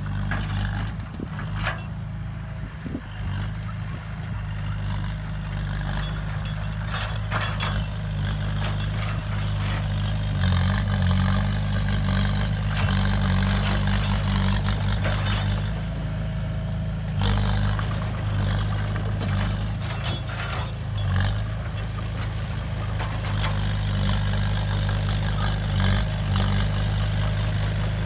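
Heavy diesel engine of construction machinery running steadily, with occasional knocks and clatter over it.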